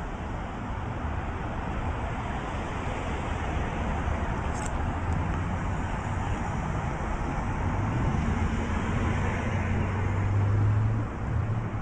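A motor vehicle engine running: a steady low hum over a noisy hiss. The hum grows louder over the last several seconds and drops off sharply about eleven seconds in.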